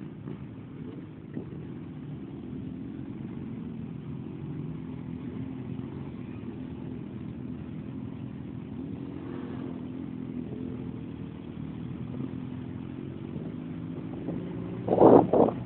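Motorcycle engines running at low speed in a slow convoy: a steady hum that drifts a little in pitch. A short, loud rushing burst comes about a second before the end.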